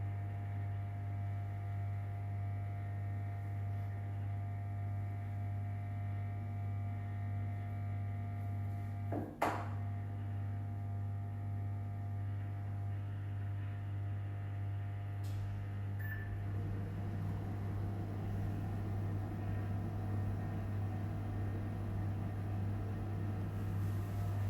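Front-loading washing machine starting its cycle: a steady electrical hum, one sharp click about nine seconds in, a short high beep about sixteen seconds in, then a rushing noise that sets in and slowly builds.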